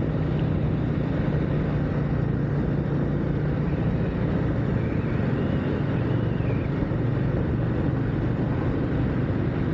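Motorcycle riding at a steady cruise, the engine holding an even low note under a constant rush of wind noise on the helmet microphone.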